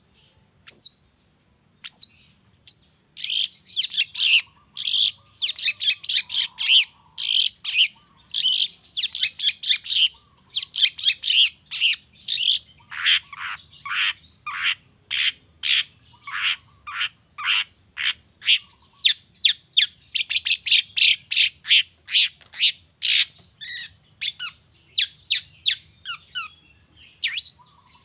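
Long-tailed shrike singing a fast run of sharp, chattering notes, several a second, after a sparser opening of a couple of seconds.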